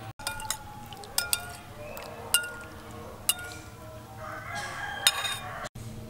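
A metal spoon clinks sharply against a porcelain bowl about six times while stirring a dipping sauce. A rooster crows for about a second and a half near the end.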